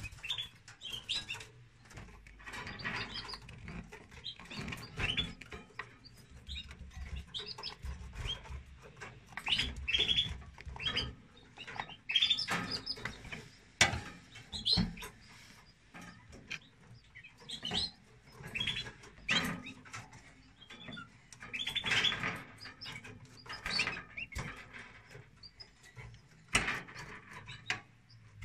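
Canaries chirping: short high calls in quick clusters every second or two, with a single sharp click about halfway through.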